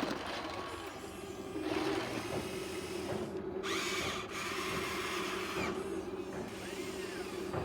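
Electric motor and hydraulic pump of a radio-controlled model excavator running with a steady whine, with a stretch of rougher, higher-pitched noise about four to six seconds in.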